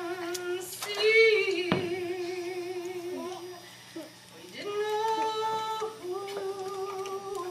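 Voices singing long held notes with vibrato, in phrases of a second or two, with a short break about four seconds in.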